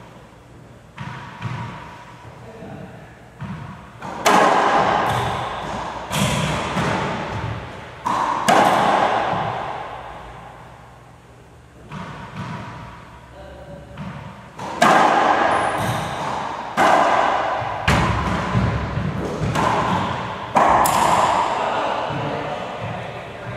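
Racquetball rallies: sharp smacks of the rubber ball off racquets and the court walls, each one echoing in the enclosed court. The hits come in two bunches, with a quieter spell in the middle.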